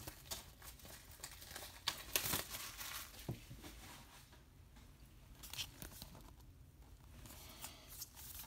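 Plastic shrink-wrap being torn and peeled off a Blu-ray case, crinkling and crackling in irregular bursts, loudest about two seconds in.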